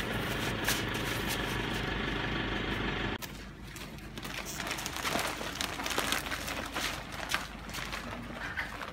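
A steady mechanical hum, like a motor or engine running, which cuts off abruptly about three seconds in. Faint scattered clicks and rustling follow.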